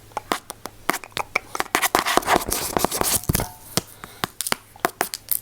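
Close-miked ASMR trigger sounds: a quick, irregular run of sharp clicks and taps, with a burst of rubbing, rustling noise about two seconds in and a dull thump just after three seconds.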